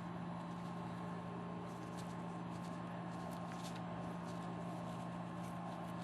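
Faint, scattered scratches of a hobby knife picking a soaked paper pattern off thin scroll-sawn wood, over a steady hum.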